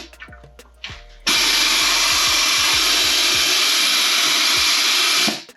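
Compressed air from an air blow gun hissing into a passage of a 4L60E transmission case in one steady blast of about four seconds, starting about a second in and cutting off near the end. The air pressure is being used to push the last clutch drum loose.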